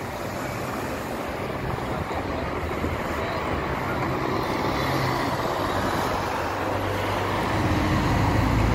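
Street traffic passing close by: a city transit bus and cars driving past, a steady rush of engine and tyre noise that grows louder toward the end.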